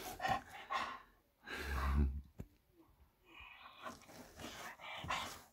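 English bull terrier stretching out on a bed, making breathy stretching noises, with a wide yawn in the second half.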